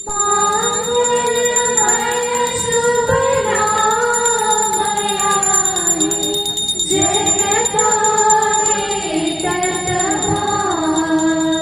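Music: a song with a sliding melodic line over a steady jingling rhythm.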